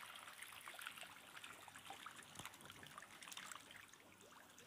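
Faint water splashing and dripping, with many small quick patters, as a netful of young albino tiger shark catfish flap about in a hand net at the water's surface.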